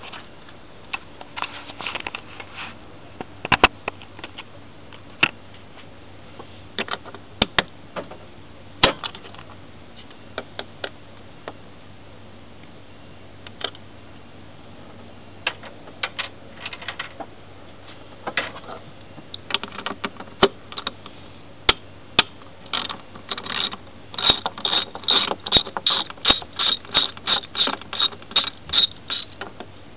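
Hand tools working on a car engine: scattered clicks and knocks, then, about two-thirds of the way in, a fast, even run of ratchet-wrench clicks as fasteners are undone to reach the spark plugs and ignition coils.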